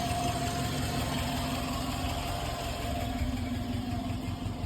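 Subaru Brumby's flat-four engine idling steadily with an even hum, run from cold for a short while so the old oil circulates before it is drained.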